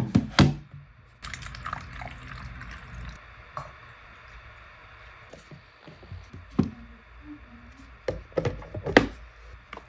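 Water poured from a plastic bottle into a plastic humidifier tank, with sharp plastic knocks as the tank and its cover are handled and fitted together, loudest at the start and again near the end.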